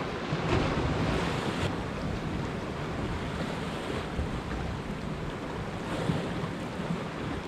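Sea waves washing against rocks, with wind buffeting the microphone.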